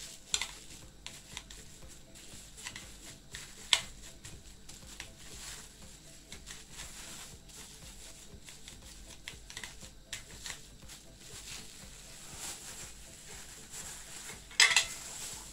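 Thin plastic bag crinkling and rustling under the hands as raw ground beef is pressed into a plastic-lined jar lid, with scattered small clicks. A louder crackle of plastic comes near the end as the bag is lifted off the patty.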